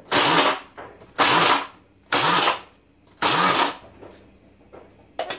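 Electric mini chopper pulsed four times in short half-second bursts, about one a second, coarsely crushing biscuits so that some pieces stay chunky. A small click near the end.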